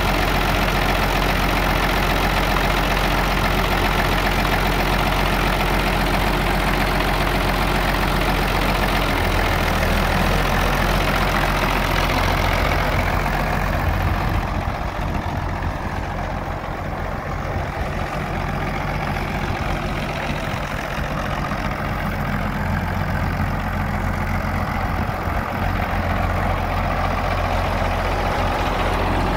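Case 930 tractor's six-cylinder diesel engine running steadily. It is close at first, grows quieter as the tractor drives away about halfway through, then louder again as it comes back.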